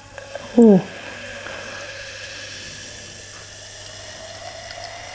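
Coca-Cola poured from a can into a tilted glass, fizzing as it lands. A faint tone rises slowly as the glass fills.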